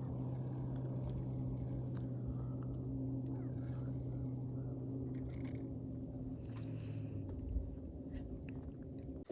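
A boat motor running at low speed with a steady hum, which dies away about seven seconds in, with a few faint ticks of handling noise.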